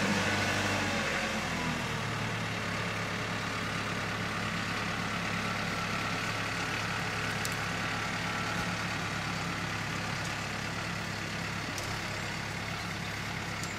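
Backhoe loader's diesel engine running steadily at an even speed.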